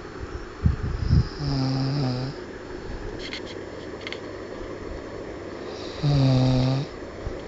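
A man snoring in his sleep: two long, steady-pitched snores about four and a half seconds apart. The first snore is led in by a few short, rough low breaths.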